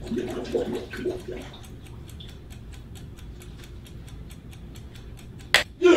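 Rapid, even ticking like a clock or stopwatch, running throughout. There is some low sloshing in the first second or so and one sudden loud burst near the end.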